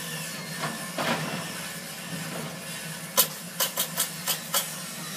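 A steady low mechanical hum, with a quick run of six sharp clicks or knocks about three seconds in.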